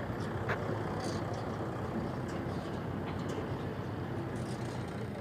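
Storm wind blowing hard across the microphone, a steady low rumble with a few faint clicks and rattles.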